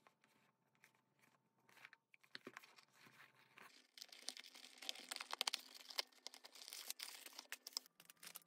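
Cardboard box of a building-block set being opened by hand: faint handling at first, then tearing and crinkling with many sharp clicks from about four seconds in. Near the end a plastic bag of bricks crinkles.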